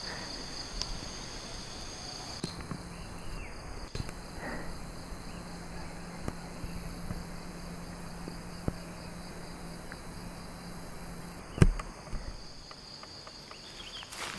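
Steady high-pitched insect chorus in forest, with a low steady hum through the middle. A single sharp crack comes about twelve seconds in, followed by light footsteps in dry leaf litter near the end.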